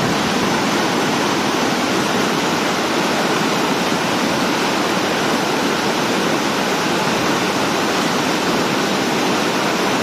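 Brown floodwater pouring over a low concrete dam crossing, rushing and churning in white water: loud and steady.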